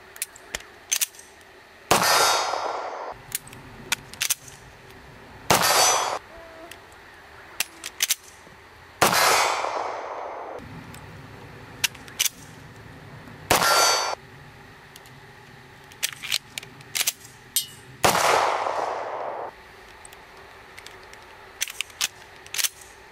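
Semi-automatic handgun firing five loud shots a few seconds apart, each ringing out for about a second, with short metallic clicks of the slide and magazine being handled between shots.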